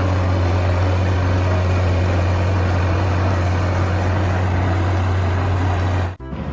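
A heavy engine running steadily at idle, a loud, even low hum with hiss over it, which cuts off suddenly about six seconds in.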